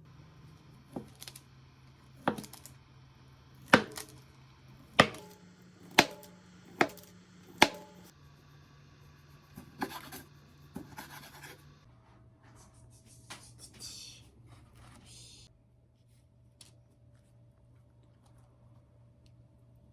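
Kitchen knife chopping on a cutting board in slow, sharp strokes, about seven over the first eight seconds. Then come a few lighter taps and a brief hiss, over a steady low hum.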